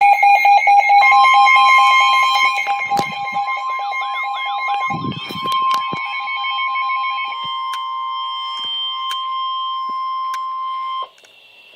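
NOAA Weather Radio warning alarm sounding through weather alert receivers: fast repeated beeping and a warbling alarm layered over a long, steady alert tone. The beeping stops about seven seconds in and the steady tone cuts off about eleven seconds in. The alert tone signals that a weather warning broadcast follows, here a severe thunderstorm warning.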